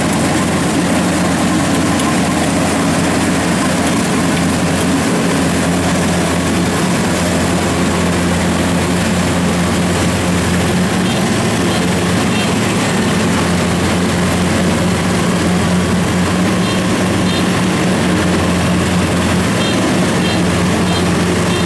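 A loud, steady mechanical drone with a low hum, holding level without change.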